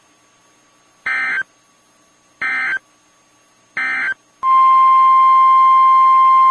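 Emergency alert SAME header: three short, identical raspy data bursts about a second and a half apart. About four and a half seconds in, a loud, steady single-pitch alarm tone of about 1 kHz begins: the NOAA Weather Radio 1050 Hz warning tone, signalling that a warning message follows.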